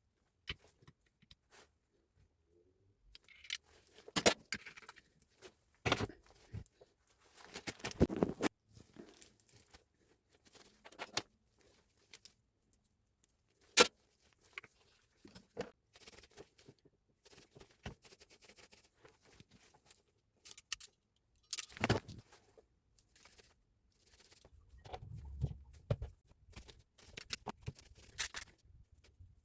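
Irregular clicks, knocks and rustling of parts and hand tools being handled on a workbench, with the sharpest clicks about 8, 14 and 22 seconds in and a brief low rumble near the end.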